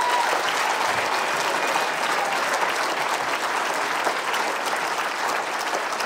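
A large audience applauding: dense, steady clapping throughout.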